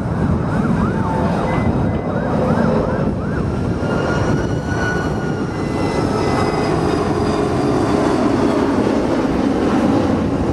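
Airbus A330 airliner on final approach passing overhead, a dense low jet rumble mixed with wind buffeting the microphone. Over it a siren yelps, sweeping up and down about three times a second for the first few seconds, then gives one long rising-and-falling wail.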